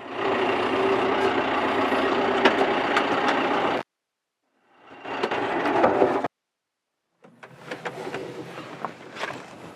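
John Deere tractor running, heard in three short pieces broken by abrupt silences: loud and steady at first, then a brief burst, then quieter with scattered clicks and knocks.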